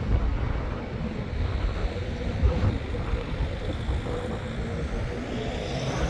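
City street traffic: a steady, uneven low rumble of passing vehicles.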